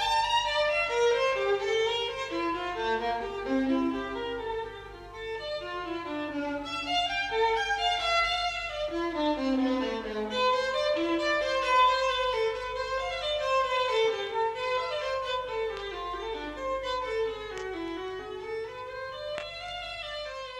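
Violin music playing: a flowing melodic line moving quickly up and down in pitch.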